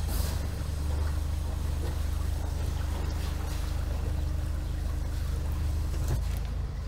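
Kent 28 Launch motorboat's engine idling: a steady low rumble, with a faint steady hum from about a second in until near the end and a few light knocks.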